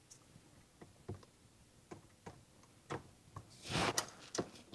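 Faint, scattered light clicks and taps of kitchen utensils against a mixing bowl, irregularly spaced, with a brief louder scrape about four seconds in.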